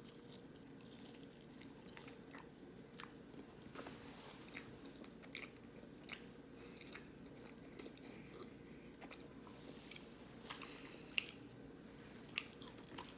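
A person chewing battered vegan nuggets close to the microphone: faint, irregular crunches and mouth clicks.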